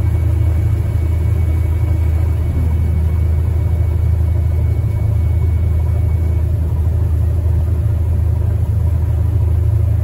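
Combine harvester's engine and unloading auger running steadily, heard from inside the cab as a loud, even low drone while grain is unloaded into a trailer.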